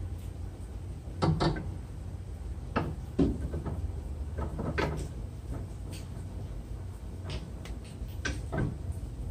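A new left front CV axle for a Kia Forte clunking and knocking as it is worked into the transmission and turned to line up its splines. There is a handful of separate knocks, the loudest about a second in and again near the end, over a steady low hum.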